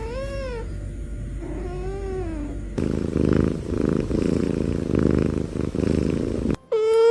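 A cat meows twice, two short calls that rise and fall in pitch, the second lower, then purrs steadily for about four seconds.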